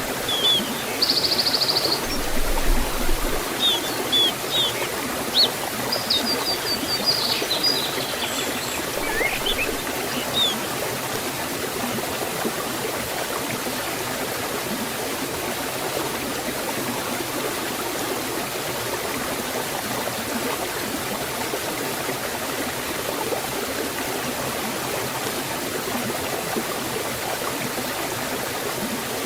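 Waterfall and forest stream flowing with a steady rush of water. Small birds chirp now and then over the first ten seconds or so, then only the water is heard.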